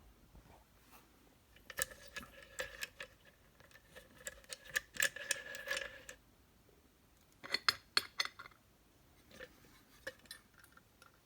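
Faint metallic clicks and taps of a dimple lock and its tools being handled. A steady whine sits under the clicks for about four seconds from near two seconds in, and a quick run of clicks comes near eight seconds.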